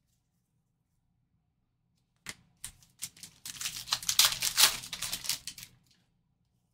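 A trading card pack being ripped open and its cards handled. It is a rapid, crackly clatter that starts about two seconds in and lasts about three and a half seconds.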